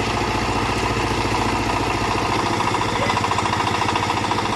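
Engine of a small backhoe running steadily with a fast, even beat, without revving up or down.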